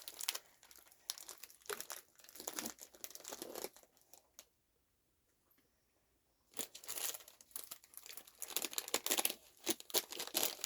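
Plastic snack wrappers crinkling and tearing as packets are handled and opened, stopping for a couple of seconds midway and then starting again.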